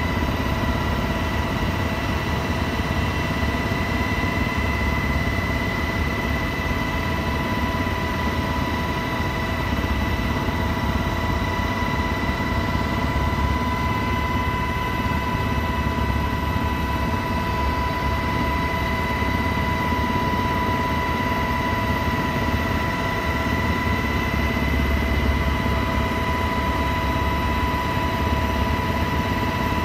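Cabin noise of a Black Hawk helicopter in flight: the twin turboshaft engines and rotors make a steady low rumble with a steady high whine over it.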